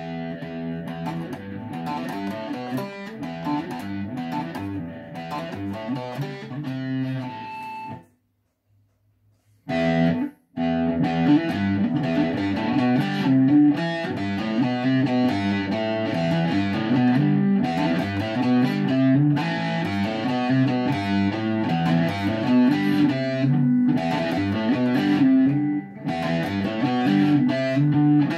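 Electric guitar being played, a run of picked notes and chords. It breaks off for about two seconds a third of the way in, then plays on without a pause.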